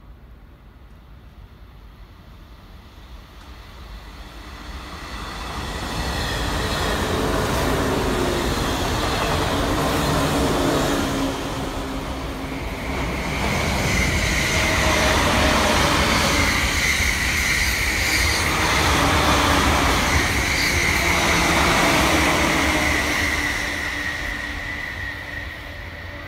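Electric trains passing through a station at speed. The rumble builds about four seconds in, stays loud with a dip around twelve seconds, then fades near the end, with a steady high-pitched tone over the second half.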